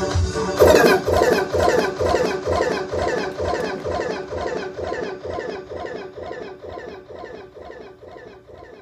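A DJ mix winding down: the track's last short, chirpy phrase repeats about three times a second over a fading kick drum, dying away steadily as with an echo-out or loop fade.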